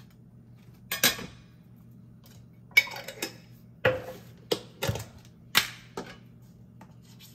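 Kitchen clatter of a table knife and a glass jam jar being handled and set down on a plate and a granite countertop: a string of about eight sharp knocks and clinks, each short, over a faint steady low hum.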